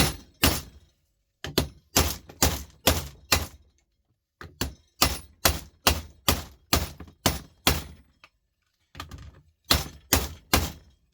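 Hammer blows breaking open an electronic device's casing, striking in runs of about two to three a second with short pauses between the runs.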